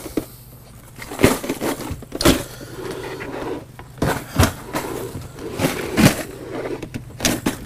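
Clear plastic tackle boxes clattering as they are handled and set down into a boat's storage compartment: a string of irregular knocks and scrapes.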